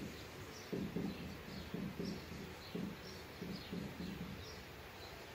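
Dry-erase marker writing on a whiteboard: a quick series of short squeaky strokes, about three a second, stopping near the end.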